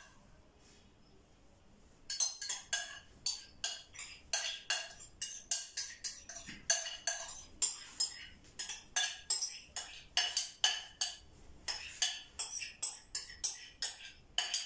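Glass bowl knocked repeatedly while thick milk-and-starch cream is shaken out of it into the baking tray: sharp clinking taps, two or three a second, starting about two seconds in.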